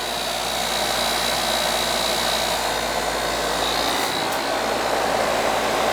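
Outdoor condensing unit of a Coleman R-410A central air conditioner running, its condenser fan blowing a steady whoosh of warm air out the top, with a faint high whine and a low hum under it.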